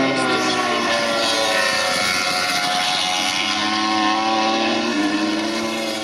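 MotoGP racing motorcycles at speed, several four-cylinder engine notes overlapping, their pitch shifting as the bikes accelerate and change gear.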